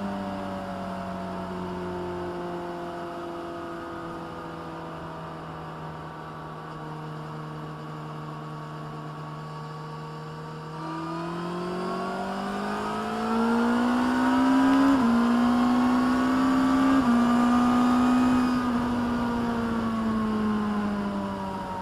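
2022 Suzuki Hayabusa's 1340 cc inline-four running through an MTC slip-on exhaust under way. The engine note holds steady and eases slightly lower at first, then rises under acceleration about halfway through, with two brief steps down in pitch. It falls away again near the end.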